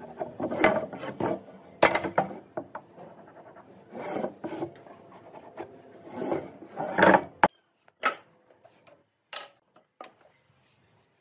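A wooden marking gauge's steel pins scratching across a wooden beam in a series of short scribing strokes, about seven of them. They stop suddenly, and a few light knocks of the wood being handled follow.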